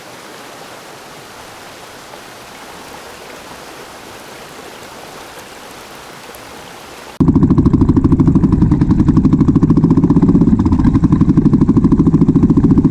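Steady rushing of a waterfall, then about seven seconds in a much louder, low, rapidly pulsing rumble cuts in suddenly and drowns it out.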